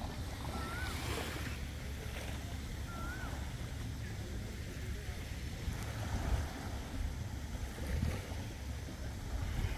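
Steady low rumble of wind buffeting the microphone over sea noise, with two short wavering whistles, one about half a second in and one about three seconds in.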